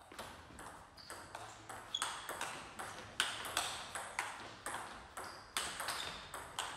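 Table tennis rally: the ball clicks sharply off the rackets and the table in a quick, even back-and-forth rhythm, about three to four hits a second, and the rally keeps going without a break.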